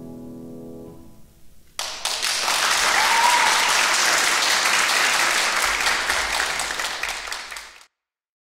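The last sustained chord of a piece fading away on a Steinway grand piano, then, just under two seconds in, an audience breaking into applause that lasts about six seconds and cuts off abruptly.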